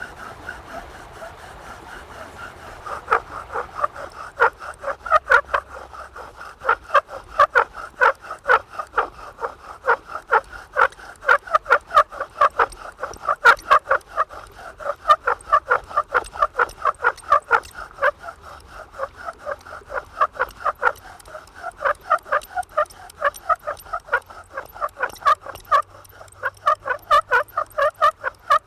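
Bow drill spindle squeaking as it grinds in a damp fireboard: a squeal with each stroke of the bow, a few a second, growing louder about three seconds in. The noise is the drill tip glazing over from moisture still in the wood.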